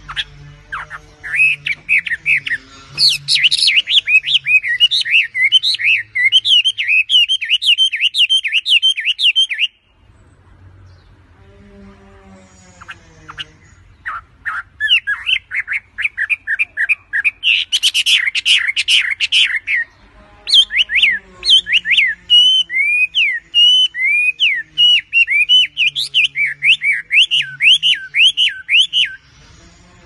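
Chinese hwamei (melodious laughing thrush) singing: loud, rapid runs of quick sweeping whistled notes. There is a long pause about ten seconds in and a brief break near twenty seconds.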